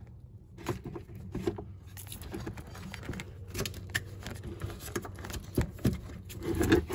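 Irregular rustling and small clicks of wires and plastic connectors being handled and pulled through a golf cart's wiring harness.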